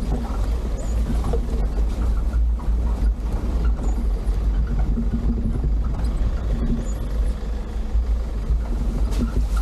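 Off-road SUV driving a rough trail: a steady, deep rumble from the engine, tyres and body.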